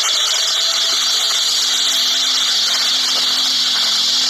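Large fuel fire with firefighting hose jets: a loud, steady rushing hiss, with a faint low hum underneath.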